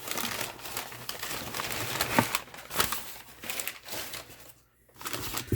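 Packing paper crumpling and rustling as it is pulled out of a shipping box, with a short pause about four and a half seconds in.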